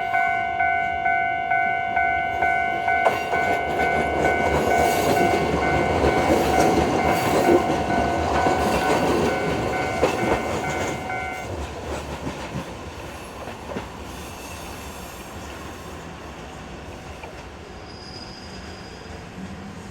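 Japanese level-crossing electronic warning bell ringing about twice a second while a Kotoden train passes over the crossing. The bell stops about halfway through and the train sound fades away.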